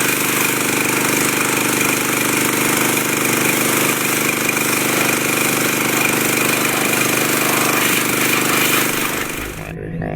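Dewalt DPW4240 pressure washer's gas engine running at a steady speed with a bright hiss over it, cutting off suddenly near the end.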